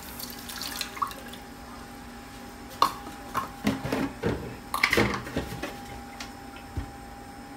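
Milk poured from a measuring cup into a steel saucepan of cooked butter-and-flour roux, splashing for about a second. This is followed by a series of knocks and clunks as a plastic gallon milk jug is picked up and handled.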